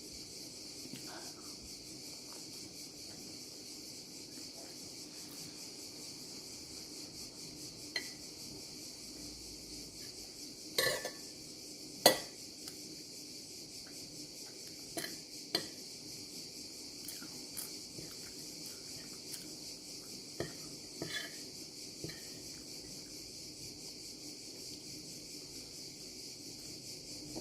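Cutlery clinking against a plate now and then: a handful of sharp clinks, the loudest two close together near the middle. Under it runs a steady chirring of crickets.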